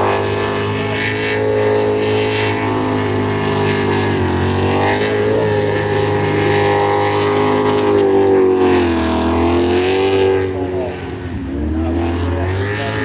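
Jet sprint boat's engine running hard at high revs. The revs dip and climb again about four seconds in, again around nine seconds, and once more near the end, where the sound briefly drops in loudness.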